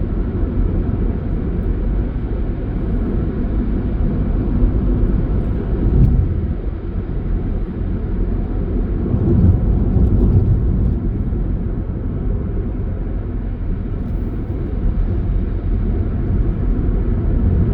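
A vehicle driving: a steady low rumble of road and engine noise, swelling briefly about six seconds in and again around ten seconds.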